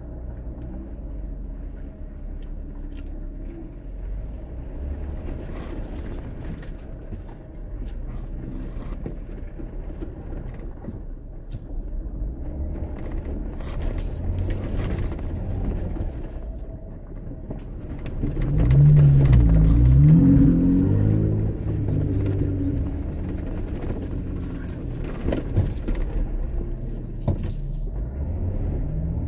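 Jeep Wrangler JKU engine heard from inside the cab, pulling at low speed over rough, rutted dirt, with loose things in the cab jangling and rattling as it bounces. About two-thirds of the way through, the engine revs up and is at its loudest for a few seconds before it settles again.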